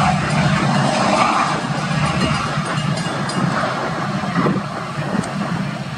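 Diesel engine of an EMD MP36PH-3S passenger locomotive running with a steady, pulsing low note, slowly fading as the train draws away.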